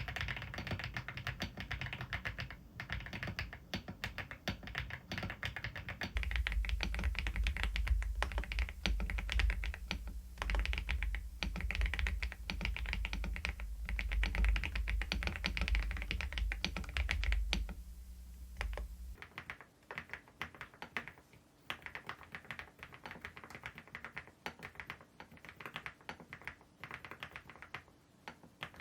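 Typing on a Preflow F1 PRO MAX full-size mechanical keyboard: rapid, continuous key clacks. The sound changes abruptly about 6 s in, growing louder with a low rumble underneath, and again about 19 s in, becoming quieter.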